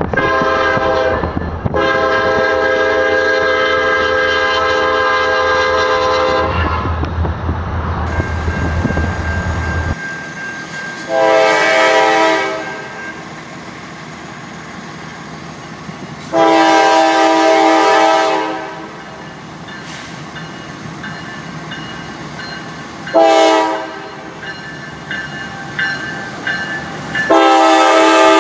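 Diesel freight locomotive air horn sounding a multi-note chord: first a short and then a long blast over a low rumble. After a cut, a Norfolk Southern train's horn sounds long, long, short, long, the grade-crossing signal, with the passing train's rumble between blasts.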